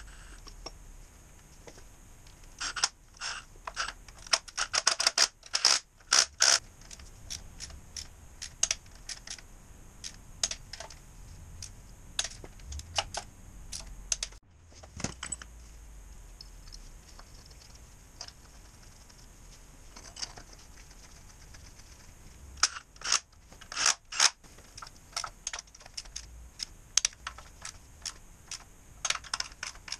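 Socket ratchet clicking in several bursts of quick clicks as bolts on an engine block are turned, with sharp metallic clinks of tools between the bursts.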